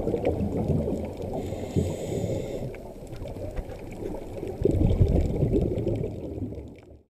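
Muffled underwater bubbling and rumble picked up by a camera in its housing: a scuba diver's exhaled regulator bubbles, louder in two stretches with a quieter spell between them, then fading out near the end.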